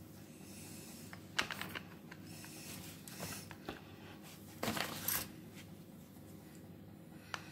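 Hard plastic clicks and knocks as the black plastic side cover of a Titan pole chainsaw is set over the bar and new chain and pressed into place. A short cluster of knocks about halfway through is the loudest.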